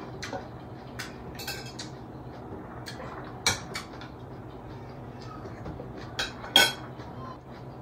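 A metal spoon clinking and scraping against a bowl and dishes while eating, in scattered light clicks with two louder clinks, about three and a half and six and a half seconds in.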